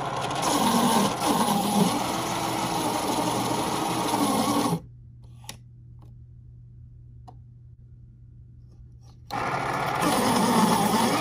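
Westcott iPoint Evolution Axis electric pencil sharpener grinding a wooden pencil. The motor and cutter run for about five seconds and stop suddenly. After a few quiet seconds the sharpener starts again and keeps running.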